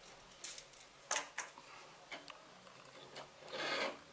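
Light clicks and taps of small parts and tools being picked up and set down on a workbench, a few scattered ticks, then a short scrape or rustle near the end.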